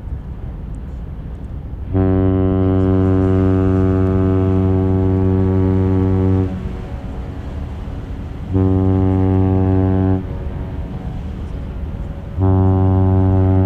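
A Great Lakes freighter's ship whistle sounding the master salute: one long blast, then two short blasts, each a low, steady tone.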